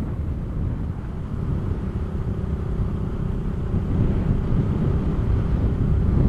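Motorcycle riding along an open road: a steady low rumble of wind on the microphone with the engine running underneath, getting a little louder about four seconds in.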